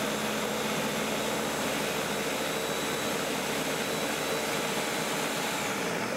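Countertop blender running steadily at speed, a motor hum over the churning of spinach, garlic, Parmesan and milk as they are puréed into a smooth pesto.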